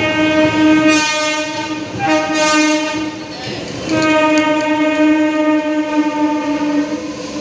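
Indian Railways locomotive horn sounding in three long, steady blasts with short breaks between them, over the rumble of passenger coaches rolling past along the platform.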